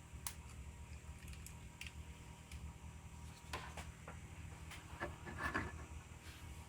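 Faint scattered clicks and taps of small objects being handled on a workbench, over a steady low hum, with a slightly louder cluster of taps about five and a half seconds in.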